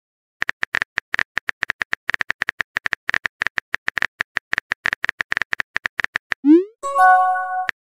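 Phone keyboard typing sound effect: a fast, even run of short clicks as a message is typed, then a quick rising swoop and a short chime near the end as the message is sent.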